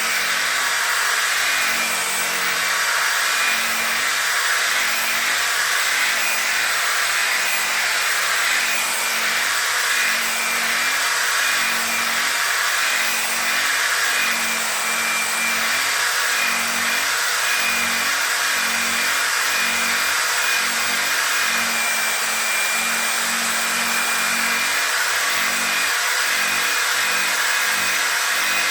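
Handheld electric orbital sander/polisher running steadily on a plastic headlight lens during wet sanding, a continuous motor whine and pad hiss.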